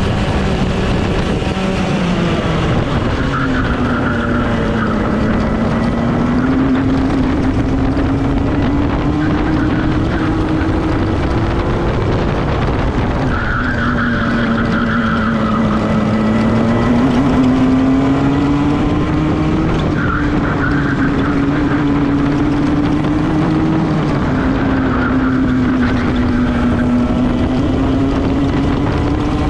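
Club 100 racing kart's two-stroke engine at full throttle, heard on board: the note climbs steadily along the straights and drops sharply as the driver brakes for corners, about three, thirteen and twenty-four seconds in.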